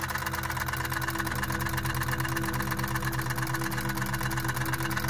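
Miniature toy steam engine running on compressed air instead of steam: a rapid, even clatter of exhaust beats, picking up a little in the first second.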